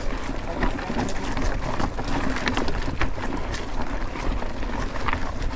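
Mountain bike tyres rolling over a gravel trail, with loose stones crunching and irregular clicks and rattles from the bike, under a rumble of wind on the microphone.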